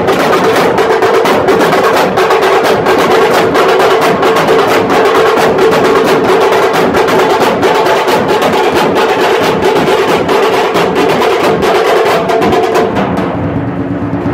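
A group of dhol drums beaten together in a fast, dense rhythm, with a steady tone underneath. The drumming breaks off about a second before the end.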